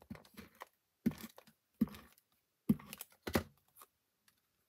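Hands handling cardstock on a tabletop: about five short taps and knocks a second or so apart with light paper rustle between, as a paper panel is layered onto a card base; the tapping stops about a second before the end.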